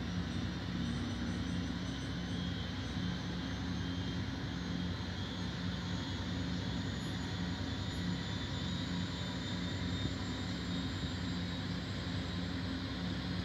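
Boeing 929 Jetfoil's gas turbine engines idling with the vessel still alongside the pier: a steady turbine whine over a low hum, unchanging throughout.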